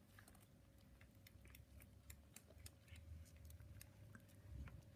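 Near silence with faint, scattered soft clicks and smacks from newborn Bengal kittens suckling at their mothers.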